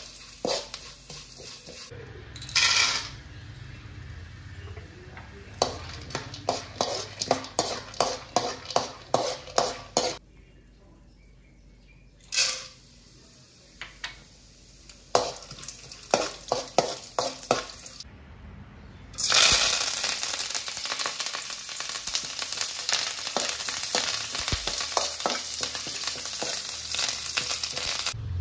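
A steel spatula scrapes and stirs ingredients in an aluminium kadai in quick repeated strokes. About two-thirds of the way in, a loud steady sizzle and crackle sets in: curry leaves frying in hot oil.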